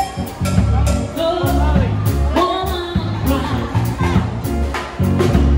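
Live band music: a woman singing into a microphone over a drum kit and piano, with a steady beat and deep bass notes.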